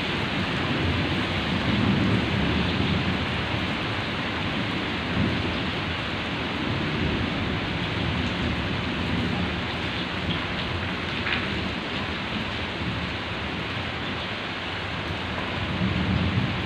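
Heavy rain pouring down steadily, a dense hiss with a low rumble underneath.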